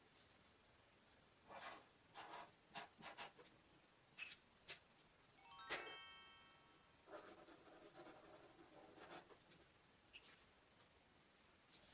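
Marker pen tip scratching on paper in a few short strokes while letters are written, then a bright ding chime about halfway through that dies away, then a longer run of quick scratchy strokes as a signature is scribbled.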